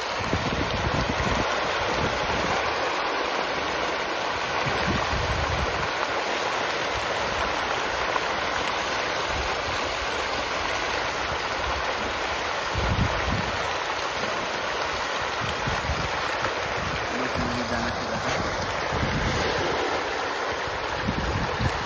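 A dense shoal of pond fish thrashing and splashing at the surface in a feeding frenzy, a continuous rushing din of churning water. Wind buffets the microphone with uneven low rumbles.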